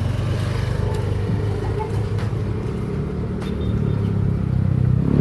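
A motor vehicle engine running steadily at low revs, then revving up with a rise in pitch near the end.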